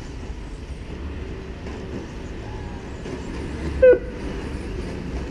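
Steady low rumble of outdoor ambience at a radio-controlled off-road track, with a faint gliding whine of the model trucks. Near four seconds there is a brief, sharp, high-pitched squeak, the loudest sound.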